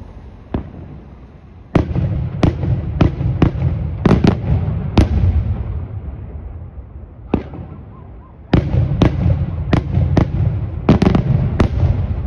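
Aerial fireworks shells bursting in the sky as a run of sharp bangs. A single report comes first, then a rapid volley of about eight bangs, another single bang, and a second volley of about nine near the end. A low rumble carries on between the reports.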